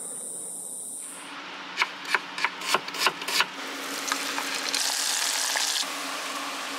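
Small battered fish deep-frying in a pot of hot oil, sizzling steadily. Several sharp clicks come in the first half, and the sizzle turns brighter and louder for about a second past the middle.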